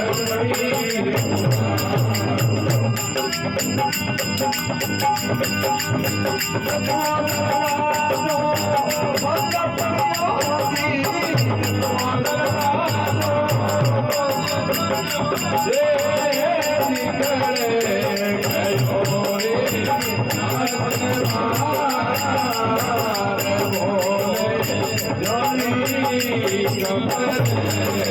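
Rajasthani devotional folk music without words: a wavering melody over a steady jingling, rattling percussion rhythm.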